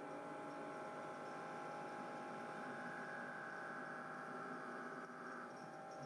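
CNC lathe cutting a metal part: a steady whine of several tones from the spindle and drives over a faint hiss, with a higher tone swelling in about two and a half seconds in and dropping away about five and a half seconds in.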